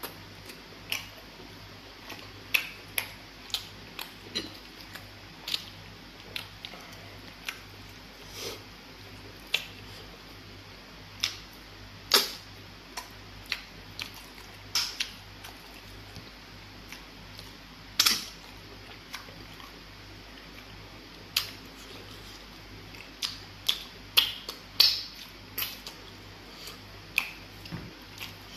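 Close-miked eating sounds: irregular wet mouth clicks and smacks from chewing pounded fufu with egusi pepper soup, a few every second or two, thicker and louder in the last few seconds. A steady low hum runs underneath.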